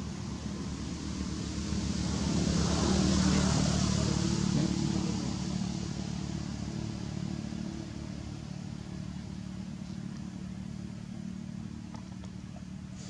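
Motor engine running steadily, growing louder about two seconds in and fading again after about five seconds, like a vehicle passing.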